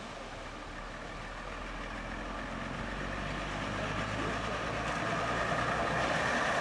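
Diesel railbus engine running under power as the single-car railbus approaches, getting steadily louder.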